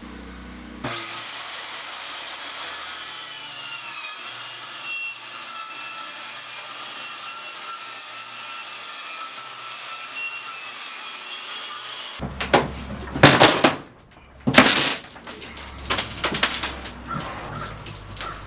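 Corded circular saw spinning up about a second in and running steadily for about eleven seconds while it cuts through the old floor, its pitch dipping briefly as the blade bites, then stopping suddenly. Several loud knocks and thumps of loose floor boards follow.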